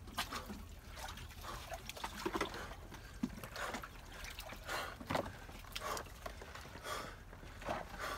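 Icy water sloshing and trickling in a water-filled chest freezer as a man lowers his body into it, with short, irregular breaths every half second or so.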